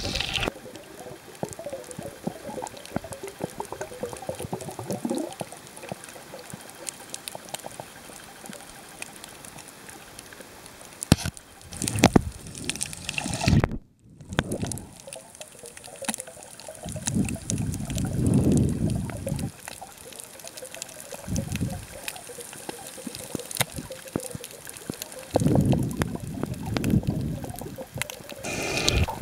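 Muffled underwater sound picked up by a camera held beneath the surface: water sloshing and gurgling around the camera, with a steady hiss, scattered faint clicks and several louder swells a second or two long. The sound drops out briefly near the middle.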